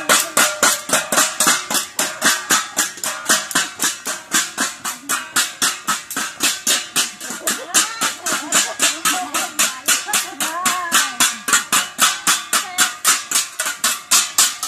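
Kitchen utensils (plates and pan lids) beaten like Cordilleran gangsa gongs, a fast, even beat of about four strikes a second, with people's voices underneath.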